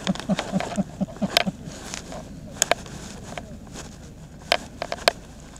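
Footsteps of people walking along a tarmac road: irregular sharp clicks and scuffs over a low steady background, with a quick run of low thuds in the first second and a half.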